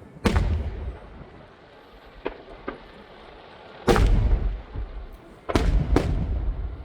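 Fireworks exploding: four loud booms, each rumbling on briefly, with two smaller cracks between the first and second and the last two booms close together.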